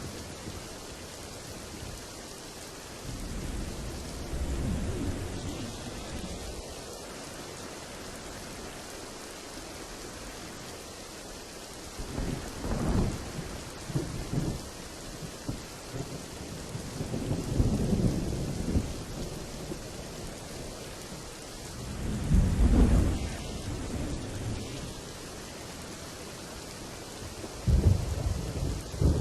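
Thunderstorm: steady rain over a series of low thunder rumbles, about five of them, rolling in one after another, the last a sharper crack just before the end.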